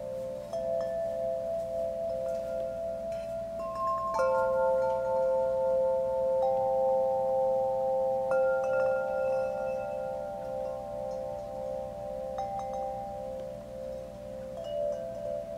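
Wind chime ringing: a new note sounds every few seconds and each rings on long, overlapping the others, some with a slow wavering.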